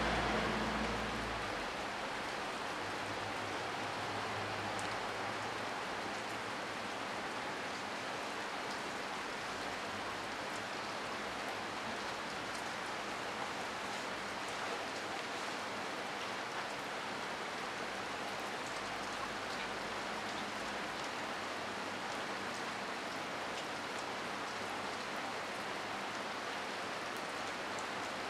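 Heavy rain falling steadily: a dense, even hiss with scattered faint ticks of drops. A low rumble fades out in the first two seconds.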